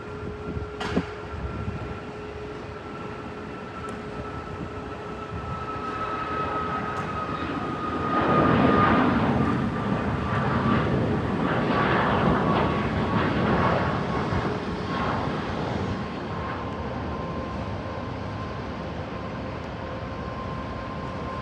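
Jet airliner passing, its engine whine slowly falling in pitch, with the rush of engine noise swelling loudest from about eight to fifteen seconds in. A sharp click about a second in.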